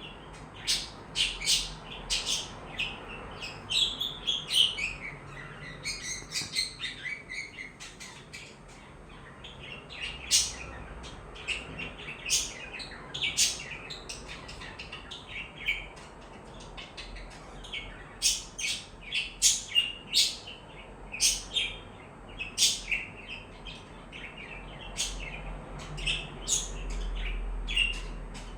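Pet budgerigars chirping: a constant run of short, sharp, high chirps, with a stretch of quicker twittering chatter a few seconds in.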